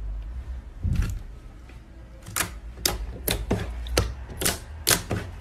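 Thick glossy silver slime being pressed and poked with the fingers, giving a soft squelch about a second in and then a run of sharp sticky clicks and pops, a few a second.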